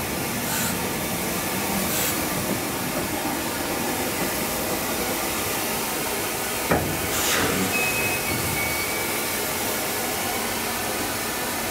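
Steady hiss of steam from a standing Southern Railway Schools Class steam locomotive, with a single sharp knock about seven seconds in.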